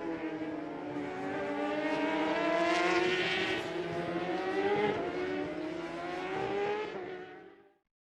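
Racing car engines running at speed, their pitch sliding down and then climbing again as the cars pass and shift, with a burst of hiss about three seconds in. The sound fades out just before the end.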